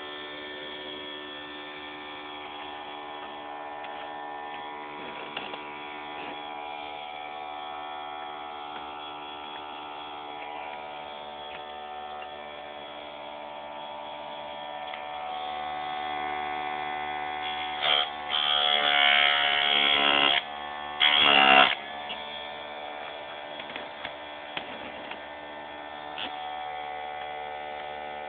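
Electric motor of a ZS-180 saw-chain sharpening machine running steadily with a hum. About two-thirds of the way in, two short, louder bursts of the abrasive wheel grinding against the chain.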